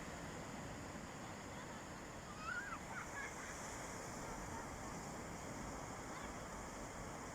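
Steady rush of sea waves washing on a beach, with a brief wavering high call about two and a half seconds in.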